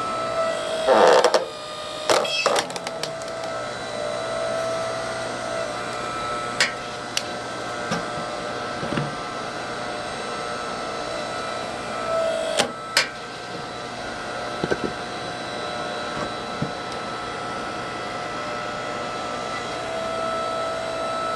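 An 8-ton hydraulic log splitter's motor and pump run with a steady hum and whine. Firewood cracks and knocks sharply as it splits, in several loud bursts about a second in, around two seconds, twice near seven seconds, around thirteen seconds and near the end.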